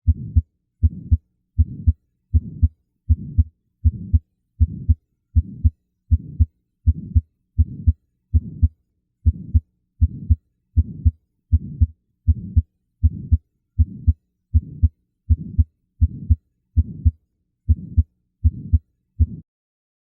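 Recorded human heartbeat as heard through a stethoscope: a steady, regular rhythm of about 74 beats a minute, each beat a close pair of low thuds.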